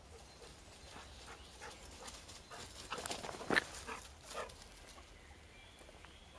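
A golden retriever running through dry leaf litter and splashing through a shallow stream: scattered quick paw steps and splashes, thickest and loudest about three to four and a half seconds in.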